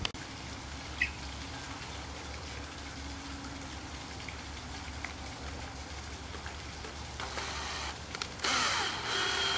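Cordless drill driving a screw into a wooden wine-rack leg, a loud steady motor whine starting about a second before the end. Before it, only low background noise and a single light knock about a second in.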